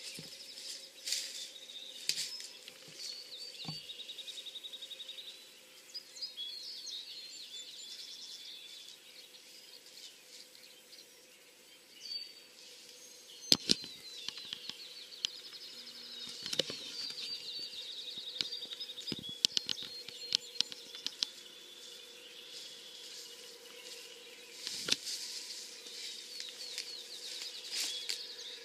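Songbirds singing in a field at dusk, with repeated trills and chirps, broken by a few sharp knocks, the loudest about halfway through.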